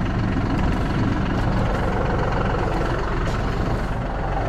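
A John Deere loader tractor's engine idling steadily with an even low hum.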